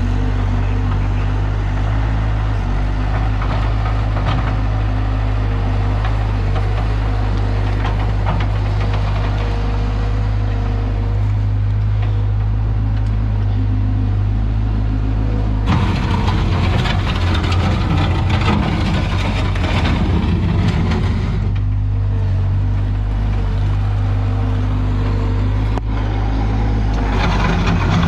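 Skid steer loader engine running steadily. About halfway through, and again near the end, it gets louder and rougher for several seconds, with clattering over the engine note, as the machine works.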